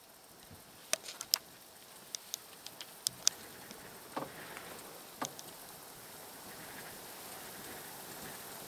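About a dozen sharp, irregular clicks and ticks over a faint steady hiss, clustered in the first half and stopping a little past the middle.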